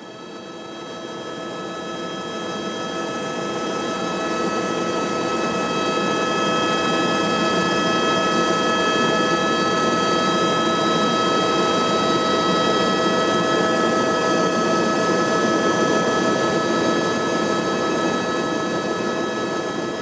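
Aircraft engine noise in flight: a steady drone with several constant whining tones over it, fading in over the first few seconds.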